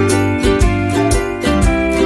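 Background music: acoustic guitar with a steady beat.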